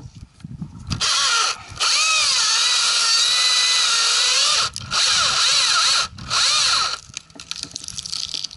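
Husqvarna T540i XP battery top-handle chainsaw cutting in four bursts, its electric motor whine dipping in pitch and recovering as the chain bites into the wood.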